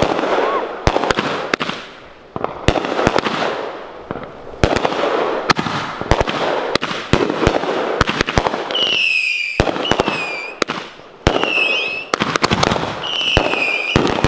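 Aerial fireworks going off in quick succession: many sharp bangs over steady crackling, with several short falling whistles in the second half.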